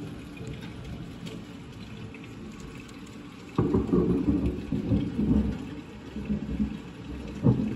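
Steady rain. About three and a half seconds in, a sudden loud clap of thunder breaks and rumbles low for a couple of seconds. A second, shorter crack comes near the end.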